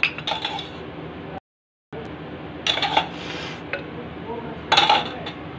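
A metal spoon clinking and scraping against a ceramic bowl while liquid is spooned over food in a clay pot, in three short bursts: at the start, midway and near the end. There is a steady low hum underneath and a brief gap of total silence about a second and a half in.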